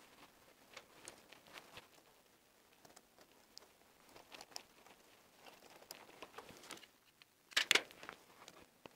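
Insulated wires being handled and pushed into flush-mounted wall boxes: scattered light clicks and rustling, with one louder crinkling rustle a little before the end.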